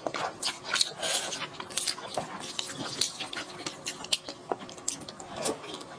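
Close-up eating sounds: irregular wet smacks, clicks and crunches of chewing, several a second.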